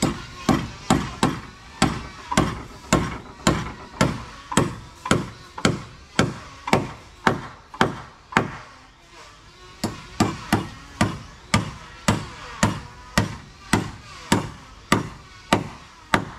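Steady hammering on boat timber, about two and a half blows a second, with a short break a little past halfway before the blows resume.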